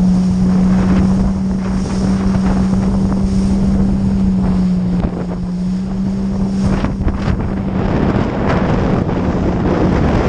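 Yamaha XLT1200 WaveRunner's two-stroke triple engine and jet pump running under way at a steady drone, with heavy wind buffeting the microphone and rushing water. The drone weakens and breaks up about eight seconds in.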